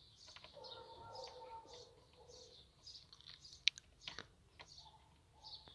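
Faint bird chirping, short high chirps repeating about three times a second. Over it come a few sharp plastic clicks, the loudest about two-thirds of the way through, as a blade fuse is handled and pushed into a BMW E60's rear fuse box.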